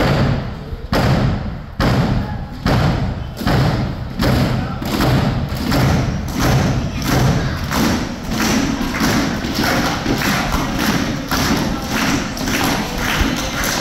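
Crowd stomping and clapping together in a steady beat. It starts at about one beat a second and speeds up to about three a second.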